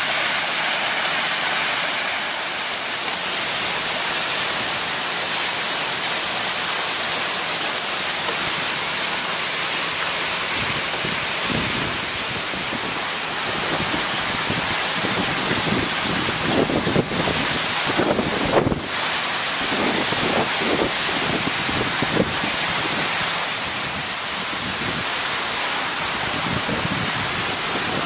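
Steady rushing noise, with irregular low rumbles between about 11 and 23 seconds in.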